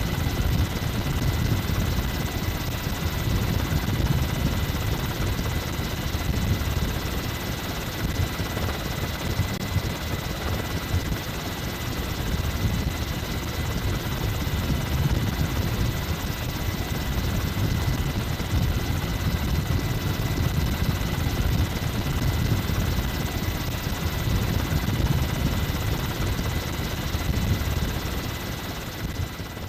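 A steady engine-like drone with a low rumble that swells and ebbs irregularly, and a faint steady high whine over it.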